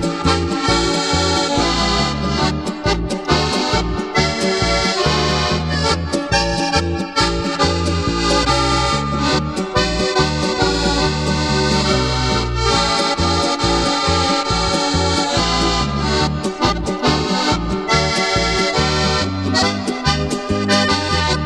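Polka played by an alpine folk trio: accordion carrying the melody over a steady two-beat bass from double bass and guitar.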